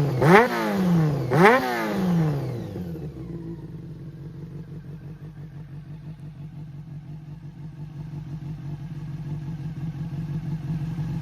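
Honda CB400 Four (NC36) four-cylinder motorcycle engine revved in two quick throttle blips, each rising sharply and falling away. It then settles into a steady idle; the seller describes the engine as free of abnormal noises.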